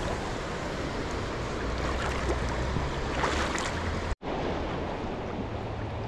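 Shallow creek water rushing over a stony bed, with wind rumbling on the microphone. The sound cuts out for an instant about four seconds in.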